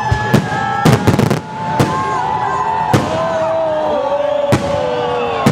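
Fireworks going off: a string of sharp bangs about a second apart, with a quick crackling burst about a second in and whistling tones, steady and falling in pitch, sounding between the bangs.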